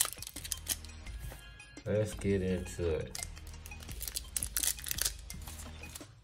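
Foil baseball card pack being torn and peeled open by hand: a run of sharp crinkles and crackles, over background music, with a brief voice about two seconds in.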